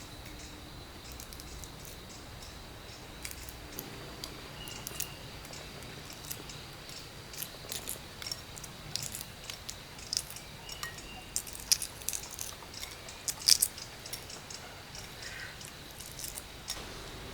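Irregular light clicks and taps of small hard objects being handled, scattered and growing busier, with the two sharpest taps in the second half, over a faint steady high-pitched tone.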